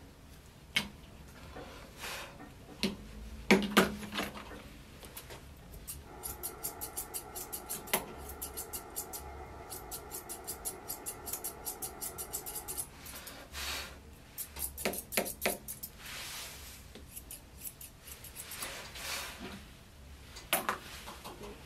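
Grooming scissors snipping through a toy poodle's coat, in quick runs of cuts at about three snips a second through the middle stretch, with scattered single snips elsewhere. A few sharp knocks about three and a half seconds in are the loudest sounds.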